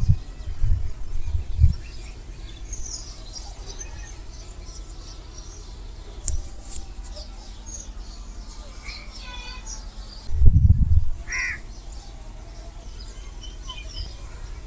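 Birds calling outdoors: scattered short calls over a steady background. A low rumble comes right at the start and a louder one about ten and a half seconds in.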